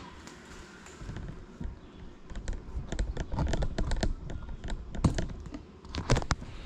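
The grounded Cinelog 35 FPV drone being handled, heard on its onboard camera: irregular clicks and taps over a dull rumble, with the loudest knocks about five and six seconds in. The motors are not running.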